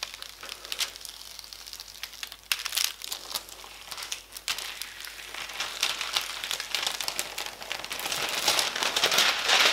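Thin plastic cover film on a diamond painting canvas crinkling and crackling as hands peel it off and handle it, louder in the last couple of seconds.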